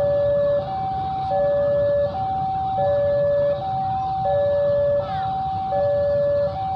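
Electronic two-tone warning alarm alternating between a higher and a lower note, each held about three-quarters of a second, over the low rumble of a CC 201 diesel locomotive's engine.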